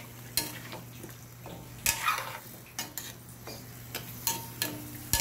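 Metal ladle stirring chunks of duck, potato and carrot in an aluminium wok, scraping and clanking against the pan at irregular moments, about every half second to second, with some clanks ringing briefly.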